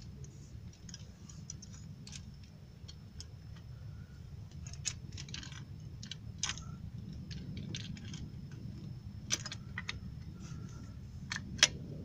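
Light metallic clicks and clinks from a Nissan 2.5 L engine's balancer chain and its tensioner as they are handled and worked into place by hand, with a sharper click near the end, over a low steady hum.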